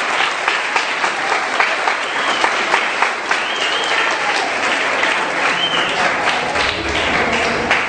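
Congregation applauding: many hands clapping steadily and densely.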